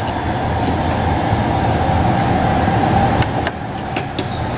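Metal spoon and fork clinking a few times on a plate while eating, over a loud steady background rumble and hiss.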